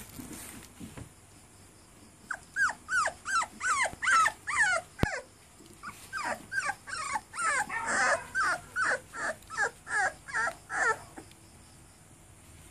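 Red-nose pit bull puppies whining: a long run of high, thin cries, each sliding down in pitch, about two a second. The cries start a couple of seconds in, overlap for a moment in the middle and stop about a second before the end.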